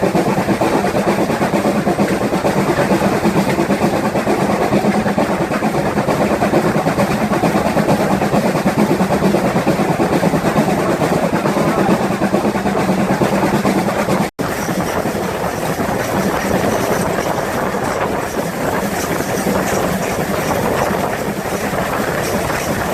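GWR 5600 class 0-6-2T tank locomotive No. 5619 working a train, a loud, steady noise of the engine and the train running on the rails. The sound cuts out for an instant about two-thirds through and then carries on.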